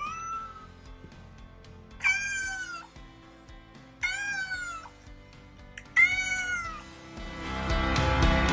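A domestic cat meowing four times, about two seconds apart, each meow rising and then falling in pitch. Faint background music plays under it and grows louder near the end.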